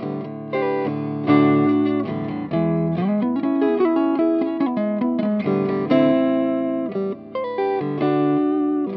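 Electric guitar played clean with slight reverb, a phrase of picked single notes and chords that ring out. The guitar is a Mexican-made Fender Stratocaster on its neck pickup, a prototype Collins Five 9 hand-wound single-coil. It is played through a Marshall JVM 410 on its crunch channel set clean.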